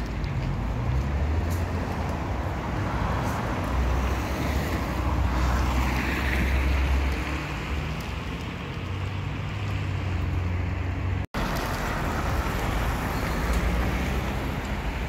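Street traffic, with cars passing on a town street, over a low wind rumble on the microphone. The sound drops out for an instant about eleven seconds in.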